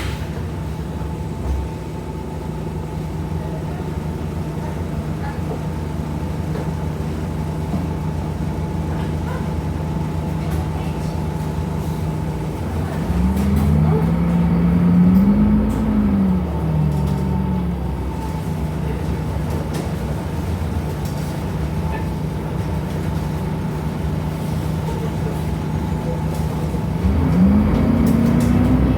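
Diesel engine of a Temsa Avenue LF bus (DAF Euro 5 engine with ZF gearbox) running steadily, then rising and falling in pitch as the bus accelerates and shifts gear, about halfway through and again near the end.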